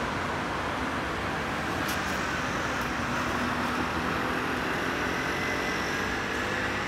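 Steady road traffic noise from cars driving along a city street, with a couple of faint clicks about two and three seconds in.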